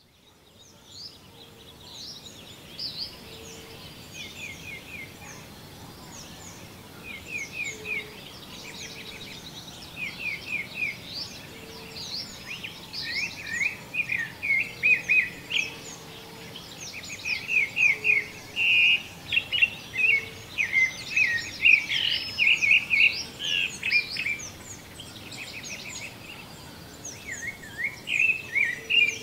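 Morning chorus of many wild birds calling and singing at once, mostly quick series of short high chirps. It fades in at the start and grows busier and louder from about twelve seconds in, with a short lower note recurring now and then beneath.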